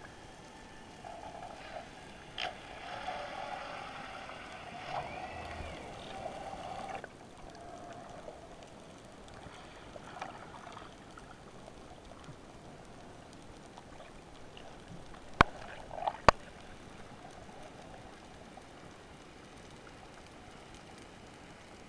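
Underwater recording from a spearfisher's camera: a steady hiss of water, with a louder, wavering rushing noise over the first seven seconds or so. About two-thirds of the way through come two sharp clicks, about a second apart.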